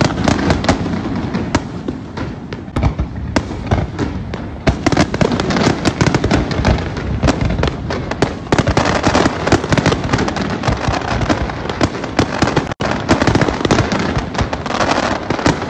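Aerial fireworks display: a dense, unbroken barrage of bangs and crackling bursts. The sound cuts out for an instant about three quarters of the way through.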